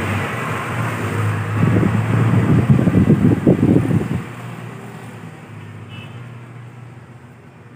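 Black & Decker electric stand fan running after a capacitor replacement: motor hum and rushing air, with a loud rattling clatter for about two and a half seconds in the middle. After the clatter the air noise dies away and the hum gets quieter.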